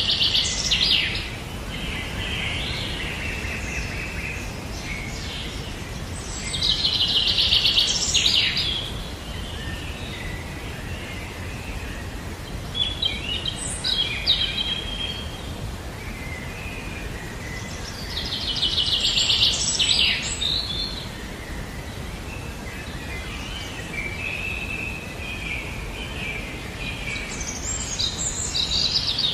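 Songbird singing: a fast, buzzy trilled phrase, lasting a second or two, repeated several times, with softer chirps in between, over a steady low background rumble.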